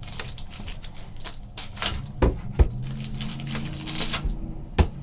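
Cards in hard plastic holders being handled and taken out of a pack: scattered clicks and light knocks with brief rustles, the sharpest about two and a half seconds in and just before the end.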